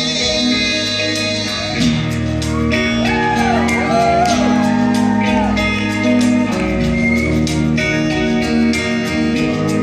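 Two guitars playing a live rock song, with a lead guitar line bending and sliding in pitch about three to four seconds in.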